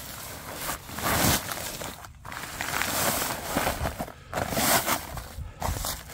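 An 80-pound paper sack of dry concrete mix, already split open, being flipped over and emptied onto crushed gravel. The paper scrapes and rustles over the stones while the dry mix pours out, in several noisy bursts.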